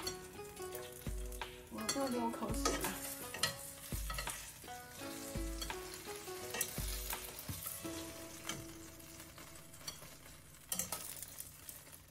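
Dumplings sizzling as they pan-fry in oil in a nonstick frying pan, with chopsticks and a spatula clicking and scraping against the pan as they are turned. Soft background music with a steady beat plays under it.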